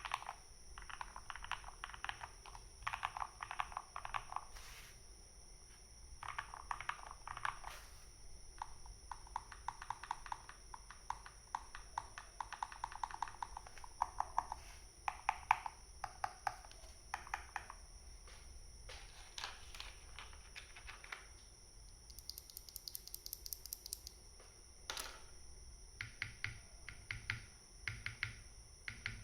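Typing on an RK61 mechanical keyboard with lubed Gateron Milky Yellow Pro linear switches and PBT keycaps: runs of quick keystrokes with short pauses between them.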